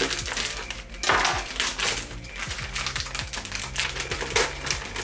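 Plastic packet of protein wraps being torn open and handled, a quick irregular crinkling and crackling.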